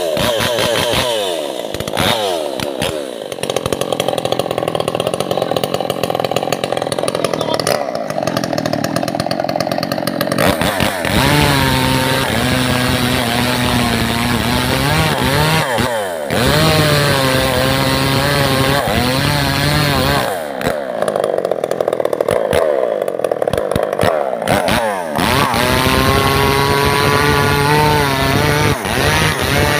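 Two-stroke chainsaw cutting into the trunk of a standing albasia tree. The engine runs at high revs under load and several times drops back toward idle before revving up again.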